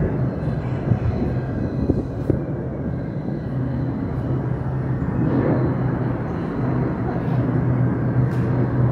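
Steady outdoor background rumble with a low hum, broken by two brief knocks in the first few seconds and faint distant voices around the middle.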